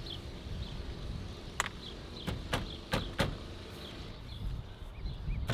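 A few sharp knocks in quick succession, from about a second and a half in, as the stock steering wheel of an 8th-gen Civic Si is knocked loose from the steering column with the centre nut backed off.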